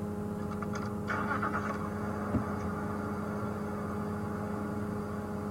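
Safari game-drive vehicle's engine idling with a steady low hum, and a single soft knock a little over two seconds in.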